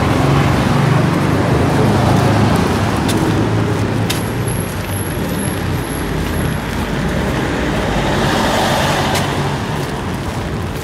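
City street traffic: motor vehicles running and passing close by, with a steady low engine rumble and tyre noise. A vehicle swells past about eight seconds in.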